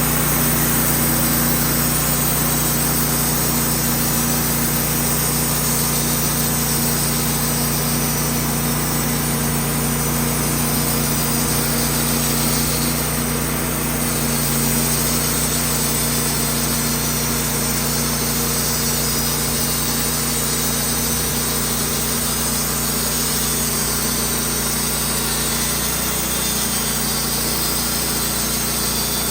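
Wood-Mizer portable band sawmill running steadily, its engine under a constant note as the band blade cuts through a birch log.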